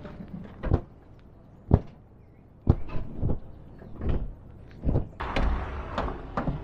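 A series of separate thumps and knocks as padded cushions and bedding are pulled out of the back of a Volkswagen Kombi camper, followed near the end by the rustling flap of a large fabric cover being shaken out.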